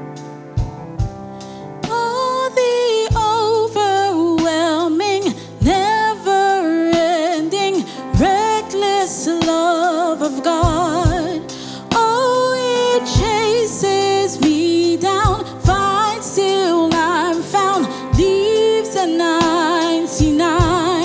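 Live church worship music: a band with steady drum beats and sustained keyboard chords, joined about two seconds in by a lead singer with a strong vibrato.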